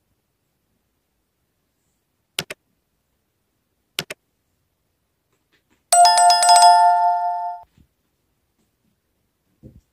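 Subscribe-button animation sound effect: mouse clicks, one of them doubled, then a bright bell-notification chime that rings for about a second and a half before dying away.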